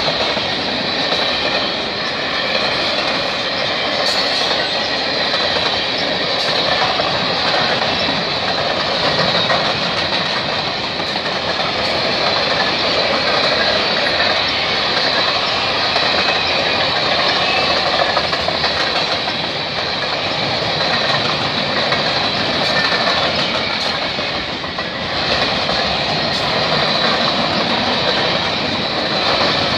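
Cars of a Canadian Pacific freight train (tank cars, covered hoppers, boxcars) rolling steadily past: a continuous rumble of steel wheels on rail with irregular clicks over the rail joints and a steady high-pitched tone on top.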